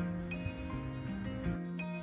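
Background music: a melody of held and plucked notes changing every half second or so over a low bass line.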